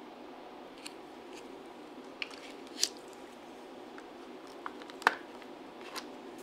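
Light plastic clicks and taps as a clear plastic cake case is handled and set down, about half a dozen, the sharpest about five seconds in, over a steady background hiss.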